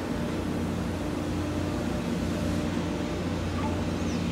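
Ship engines running with a steady low drone, a few steady low tones over an even hiss.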